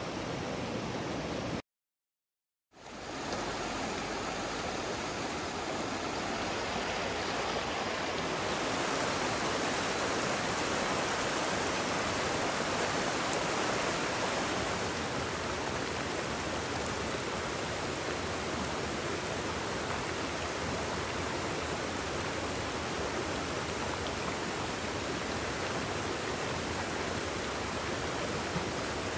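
Mountain stream water rushing over rocks and shallow riffles: a steady wash of running water. It drops out to silence for about a second near the start and fades back in.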